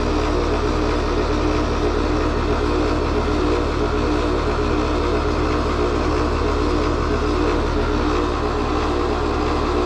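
R-410A heat pump outdoor unit running steadily, its compressor making a harsh mechanical clatter, like a compressor full of rocks. The technician takes this for an internal mechanical malfunction, with the compressor barely pumping.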